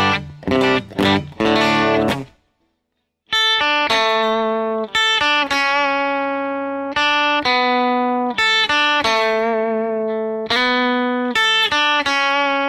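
Electric guitar played through a Case Study Studio Compressor pedal with its attack turned low, giving each pick attack a pop. Quick repeated chords stop about two seconds in, and after a short gap ringing chords and held notes are struck again every second or so.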